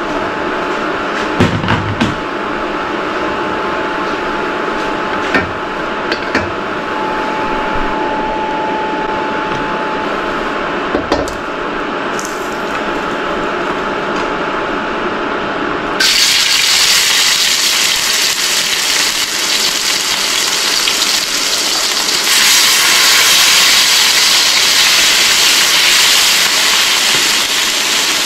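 Oil sizzling in a wok, with a wooden spatula scraping and tapping against the pan. About halfway through, curry-seasoned goat meat goes into the hot oil and a much louder, brighter sizzle takes over, getting louder again a few seconds later as the meat sears.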